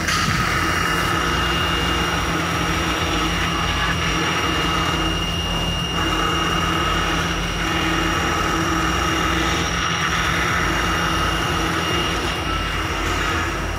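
CNC router spindle running steadily as its bit mills a thermocol (polystyrene foam) block, a constant high whine over a low machine hum.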